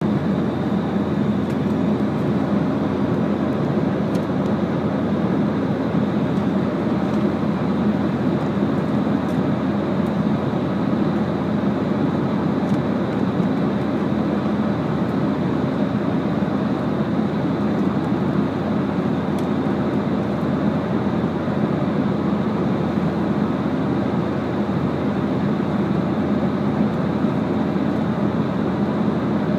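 Airliner cabin noise in flight: a steady, even drone of engines and rushing air, with a faint high whine.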